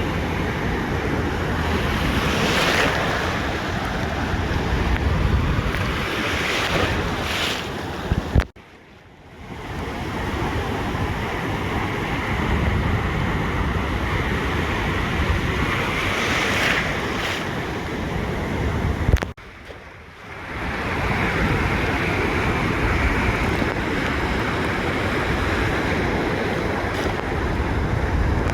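Ocean surf breaking and washing on a beach, a steady rush with deep rumble, with wind buffeting the microphone. The sound cuts out abruptly twice, about 8 and 19 seconds in, and comes straight back.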